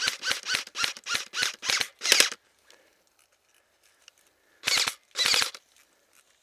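Airsoft rifle firing a quick string of about eight shots, three or four a second, then after a pause two more shots near the end.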